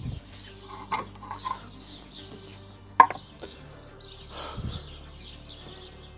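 A few clinks and knocks of crockery and utensils as food is plated, the sharpest about three seconds in, over birds chirping in the background.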